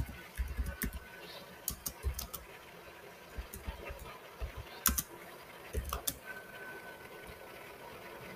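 Computer keyboard keystrokes: a few sparse, irregular clicks in short clusters as a line of code is typed.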